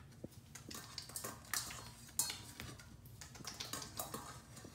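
Stainless-steel dog bowl clinking and scraping as kittens scrabble and climb about inside it: a run of small, irregular clicks and scrapes of claws and paws on the metal.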